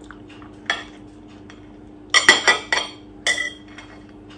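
Cutlery clinking against a plate while food is cut and spread: one clink about a second in, a quick cluster of clinks just after two seconds, and one more ringing clink a second later. A faint steady hum sits underneath.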